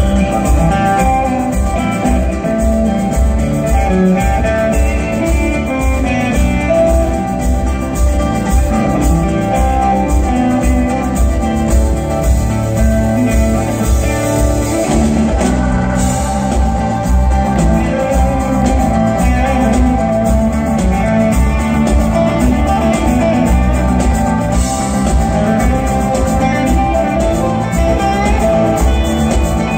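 Live band playing an instrumental blues-rock passage without vocals, led by electric guitar on a sunburst Les Paul-style guitar over a drum kit with a steady beat. Heard from the audience through a phone's microphone.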